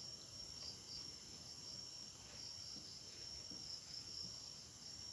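Faint, steady high-pitched insect chirring.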